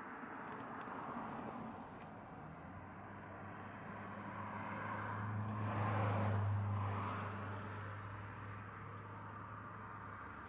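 A car driving past on the road, its engine hum and tyre noise swelling to their loudest about six seconds in and then fading.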